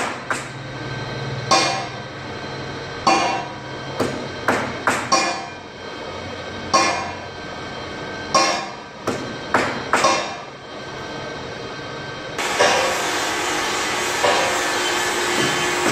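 Hammer blows on metal, irregular and each ringing briefly, about a dozen in the first twelve seconds. About twelve seconds in, a steady rushing noise starts, with a few more blows over it.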